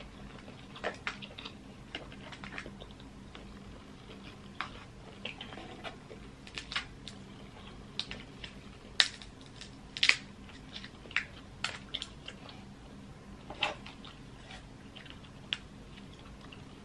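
Close-miked cracking and clicking of a king crab leg's shell being broken open and the meat pulled out, mixed with eating sounds. Scattered sharp cracks, the loudest about nine and ten seconds in.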